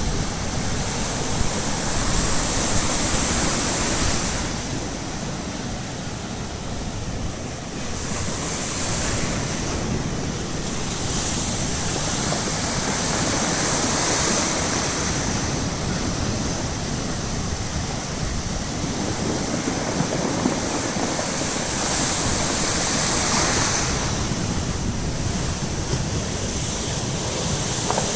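Baltic Sea surf breaking and washing on the shore, swelling and ebbing every several seconds, with wind rumbling on the microphone.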